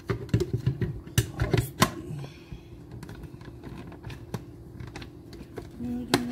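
Hard plastic blender lid clicking and knocking against the jar as it is fitted, pressed down and lifted off again. There is a quick run of clicks in the first two seconds, then scattered lighter clicks and one more near the end. The jar is packed too full for the lid to seat.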